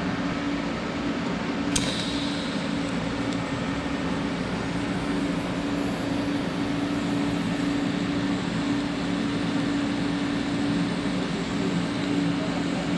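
TIG welding: a steady buzzing hiss with a steady hum, and a sharp click about two seconds in.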